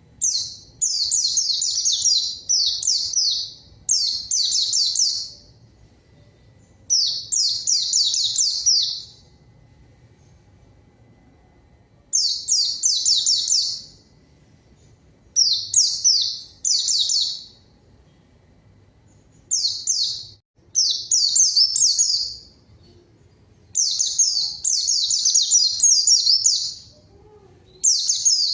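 White-eye (pleci) singing in repeated bursts of fast, high twittering phrases, each one to two seconds long with short pauses between them. It is the vigorous song that keepers play to call out a rival and get a silent white-eye to sing.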